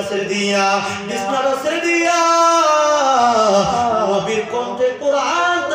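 A man's voice chanting sermon lines in a drawn-out, sung melody into a microphone. About two seconds in it holds one long note, then slides down in pitch.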